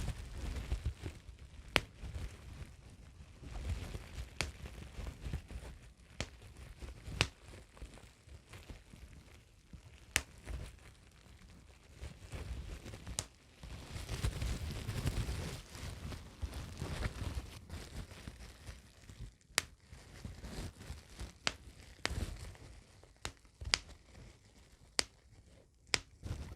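Plastic bubble wrap being handled close to the microphone: crinkling and rustling, with about a dozen sharp, irregularly spaced pops.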